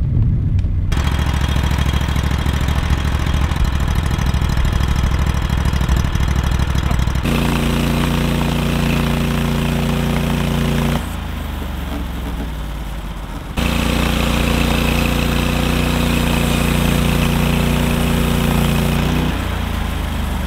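Norwood LumberPro HD36 portable bandsaw mill's petrol engine running under load as the band blade cuts through a log. The sound changes abruptly several times, with a quieter stretch in the middle.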